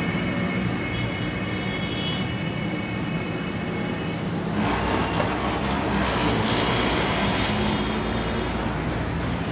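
An engine running steadily, its sound growing a little brighter about four and a half seconds in.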